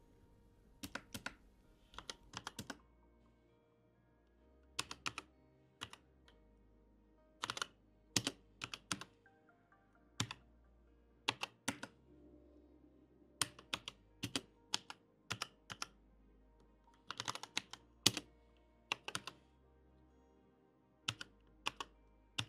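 Keys clicking on a computer keyboard in short irregular bursts with pauses between them, as router configuration commands are typed. Quiet background music plays underneath.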